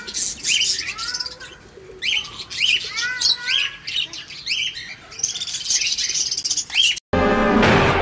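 A flock of caged budgies chirping and chattering, with many short rising-and-falling calls. About seven seconds in, a loud cartoon sound clip with music cuts in abruptly.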